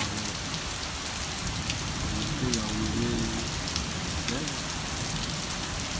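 Heavy rain pouring down steadily, with many separate drops ticking on hard surfaces.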